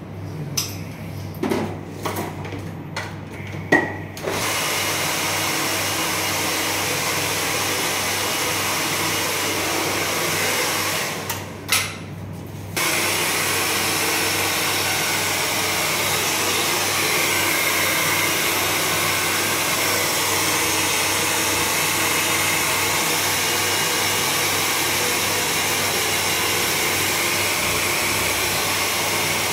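A handheld hair dryer blowing steadily as a stylist blow-dries and combs a client's hair. It switches on about four seconds in after a few clicks of handling, cuts out briefly with a click near the middle, then runs on steadily.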